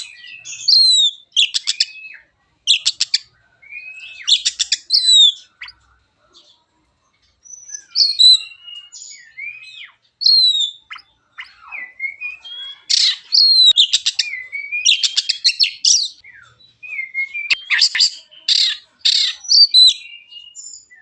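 Oriental magpie-robin (black-and-white kacer) singing: varied whistled notes sliding up and down, mixed with fast stuttering rattles, in phrases broken by short pauses about six and eleven seconds in.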